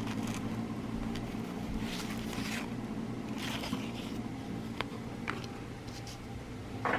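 Cardboard trading cards handled and slid about by hand, with soft rustles and a couple of light ticks, over a steady low hum.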